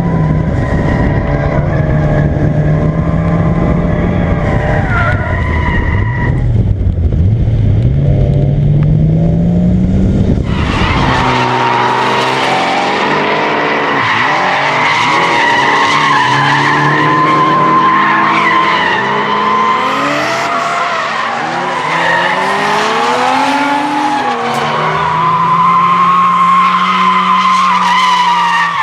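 Toyota Supra MKIII Turbo's 7M-GTE straight-six revving up and down. About eleven seconds in, the tyres begin a long, steady squeal while the engine keeps revving: the car is drifting.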